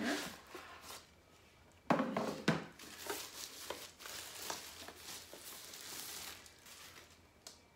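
Packaging being handled: a cardboard box opened and the white protective wrap around the device rustling and crinkling as it is pulled out and turned over, with a louder handling bump about two seconds in.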